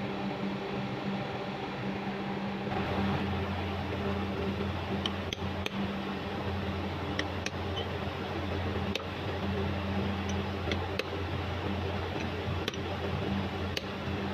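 Light, irregular taps as a 40-55-10 oil seal is driven into the bearing bore of a small worm gearbox's aluminium housing with a rod, starting about five seconds in. Under them runs a steady machine hum, with a deeper hum joining about three seconds in.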